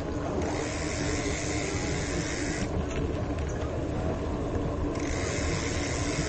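Wind rushing over an action camera's microphone on a moving bicycle, a dense, steady low rumble, mixed with road noise. A brighter hiss comes in about half a second in, drops away near the middle and returns near the end.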